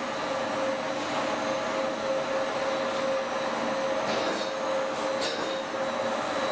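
Beeswax foundation machinery running: the electric drive of the wax strip-forming machine turning its drum and rollers as the wax strip winds onto a shaft. It gives a steady hum with a constant whine and a couple of faint clicks.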